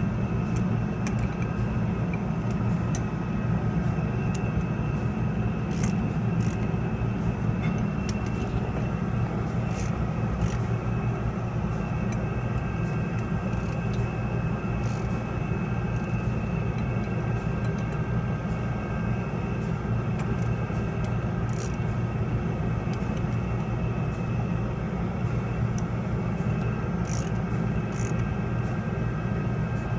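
Scattered sharp metallic clicks from a socket ratchet wrench turning the air-gap adjustment nuts on a motor's disc brake. Under them runs a steady low rumble with faint steady whine tones.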